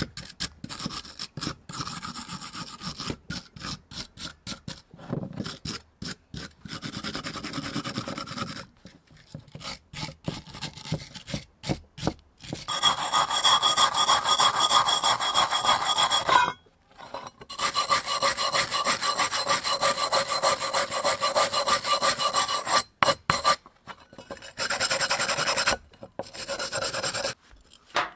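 Hand wire brush scrubbing rust and old paint off the steel parts of an antique hand drill in fast back-and-forth strokes. The strokes come in short runs at first, then turn into long, louder stretches of steady scrubbing about halfway through.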